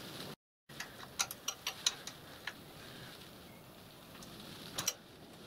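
Light metallic clicks and ticks of a small hand tool working at a leaking pipe joint on a miniature steam locomotive's hand pump. There is a quick run of about eight clicks, then two more close together near the end.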